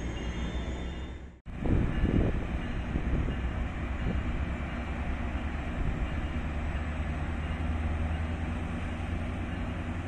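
MARC commuter train rolling slowly along the track: a steady low rumble of wheels and running gear. The sound cuts out abruptly for a moment about a second and a half in, then resumes.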